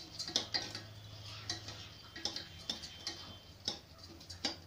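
Spoon scraping and clicking against the stainless steel base of a pressure cooker while stirring rice as it roasts in ghee, in quick, irregular strokes a few times a second.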